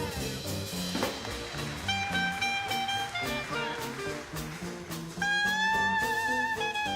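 Instrumental break of an upbeat swing-style song: a bass line stepping from note to note under a lead melody, which holds a long wavering note from about five seconds in.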